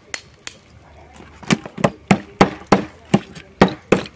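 A run of sharp knocks, about three a second, starting about a second and a half in: a big kitchen knife whacking grilled oyster shells to crack them open.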